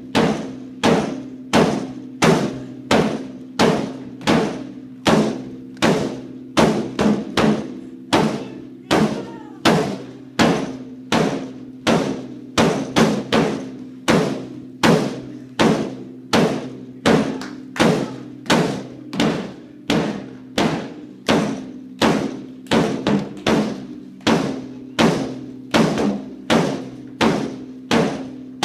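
A large drum beaten in a steady beat, about two strikes a second with an occasional quick double strike, each stroke ringing on.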